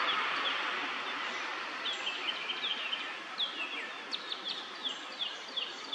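Small songbirds chirping in quick series of short, falling notes from about two seconds in, over steady background noise that slowly fades.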